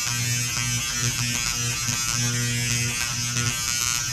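Dremel electric engraver buzzing steadily as its vibrating tip marks a bakelite sample mount. A lower buzz cuts in and out in short spells as the tip works against the surface.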